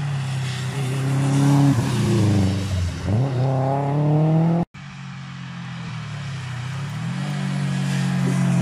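Rally car engine at full throttle as the car approaches, its pitch climbing, dropping sharply about three seconds in, then climbing again. After an abrupt break about halfway, a second rally car's engine comes on, growing louder and rising in pitch as it nears.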